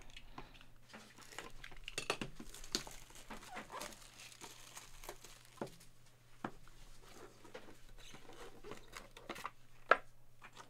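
Small white cardboard boxes being handled and opened: cardboard rustling and scraping, with scattered light taps and clicks and one sharper click near the end.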